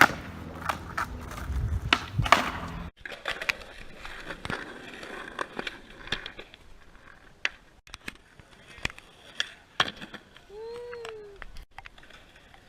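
Skateboard sounds: wheels rolling over pavement and sharp clacks and knocks of the board. About three seconds in the rolling stops abruptly, leaving scattered clacks, and a short rising-then-falling tone sounds about ten seconds in.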